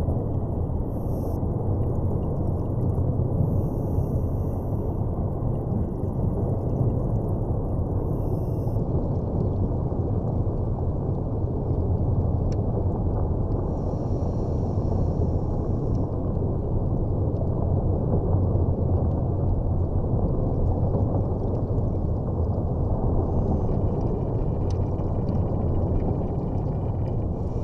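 Steady, muffled low underwater rumble, even in level throughout with no distinct events.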